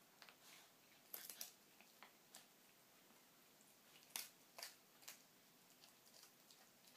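Small terrier crunching dry kibble pieces picked up off the floor: faint, sharp crunches in short clusters, a few about a second in and more around four to five seconds in.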